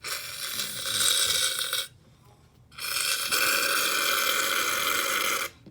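Aerosol shaving cream can dispensing foam in two long hissing sprays, the first about two seconds and the second nearly three, with a short break between.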